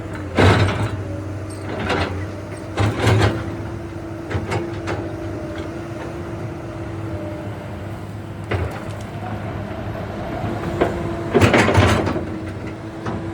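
Komatsu PC220LCi-12 excavator running with a steady whine over a low hum, broken by several short loud noisy bursts of working noise: one near the start, one about three seconds in, and a cluster near the end.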